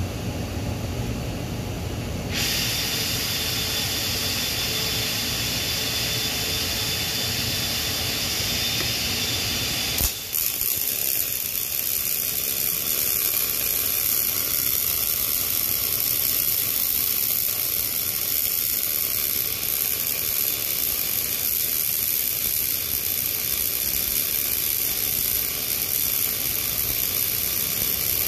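Short-circuit MIG welding arc using Miller's RMD (Regulated Metal Deposition) process on a 316L stainless steel pipe, running steadily. A sharp click about ten seconds in, after which the sound turns brighter and more hissing.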